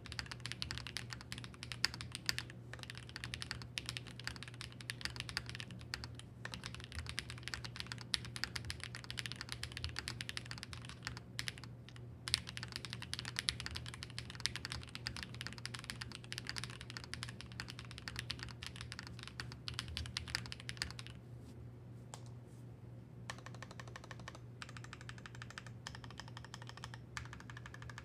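Fast, continuous typing on a custom mechanical keyboard (Wuque Studios Freya with GMK keycaps and Gateron x Swagkeys Deepings switches), the keystrokes thinning out about three quarters of the way through. A low steady hum runs underneath.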